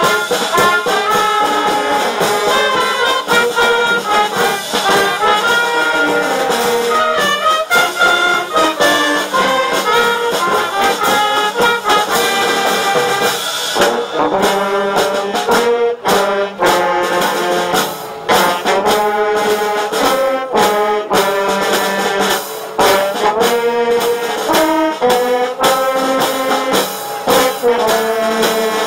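A fire brigade wind band playing a tune, with saxophones and brass, a tuba among them.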